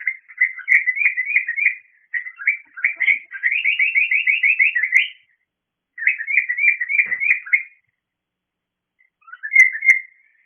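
Pet cockatiel calling for attention: loud bouts of rapid, repeated whistled chirps, four bursts separated by short pauses.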